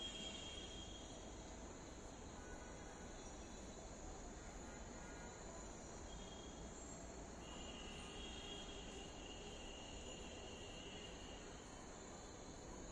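Night insects, crickets, chirping faintly: a very high chirp pulses about three times a second in short runs, over a steady high insect trill and a low background hum.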